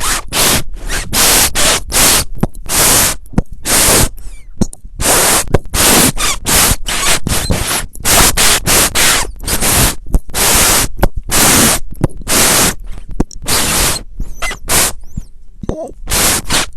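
Loud bursts of harsh, static-like noise that cut on and off abruptly and irregularly, several times a second.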